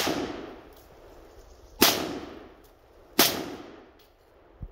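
Three semi-automatic shots from a 16-inch carbine-length PSA AR-15 firing brass-cased .223: one right at the start, then two more about a second and a half apart, each ringing out with a long echo. The rifle cycles the brass ammunition between shots.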